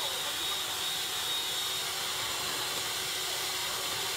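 Stand mixer running steadily at speed, its wire whisk beating egg whites into a meringue in a stainless steel bowl: an even whirring with a faint high whine.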